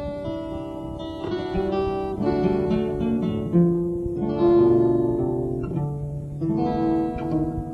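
Acoustic guitar playing an instrumental: notes plucked one after another and left to ring.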